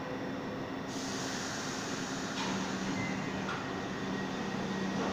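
New York City subway train approaching in the station: a steady rumble and hiss that grows gradually louder, with a hum coming in about halfway through.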